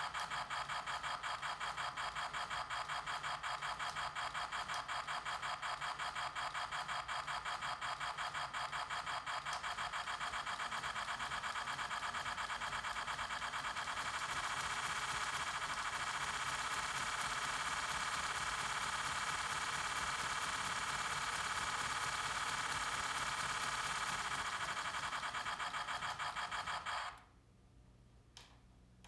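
Lionel BR-50 O-scale model steam locomotive running in place, its sound system playing rapid, evenly paced steam chuffing as the drivers turn. About halfway through the chuffs run together into a louder, steadier rush, and near the end the sound cuts off abruptly.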